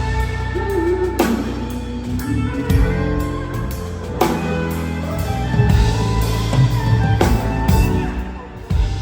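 Pop band playing with a drum kit up front: guitar and bass notes over a steady groove, with big accented hits on the drums and cymbals roughly every three seconds. The music drops briefly near the end before another hit.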